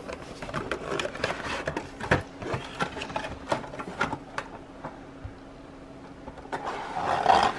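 Clear plastic blister tray and cardboard figure box being handled: a run of crinkles, clicks and scrapes of plastic and card, over a faint steady hum, with a louder rustle near the end.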